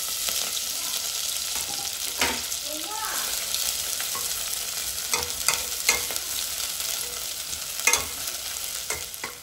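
Chopped greens hitting hot oil in an aluminium pot set off a steady sizzle of frying that starts suddenly. A wooden spatula stirs them, knocking against the pot with a few sharp clicks.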